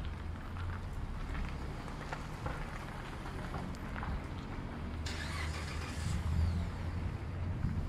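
Low rumble of city street traffic, with a brief hiss about five seconds in, like a vehicle passing.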